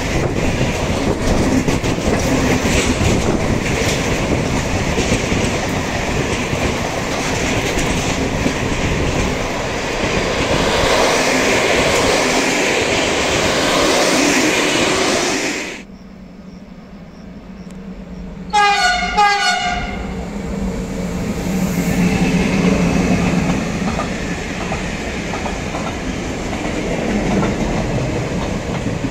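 Container freight train passing close by, a steady rumble with wheel clatter, which cuts off abruptly a little past halfway. A few seconds later a train horn sounds one short blast of about a second, and train running noise builds again after it.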